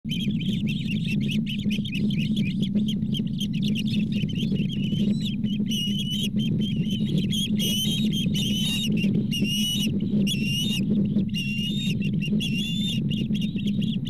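Ospreys calling in a steady stream of rapid, high, wavering chirps, over a steady low rumble of wind on the microphone.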